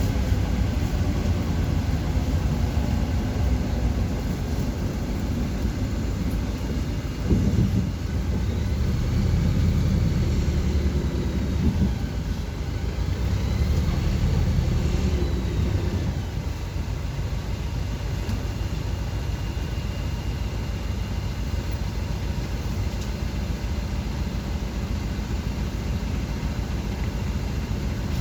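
City bus in motion: steady engine and road rumble, with a single knock about seven seconds in and a faint high whine that rises and falls twice near the middle.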